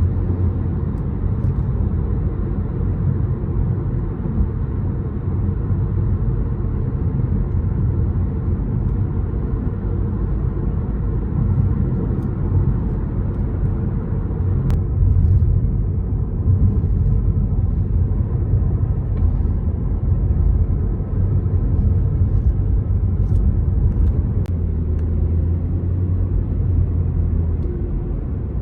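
Steady low rumble of a waterfall and river rushing, with no breaks.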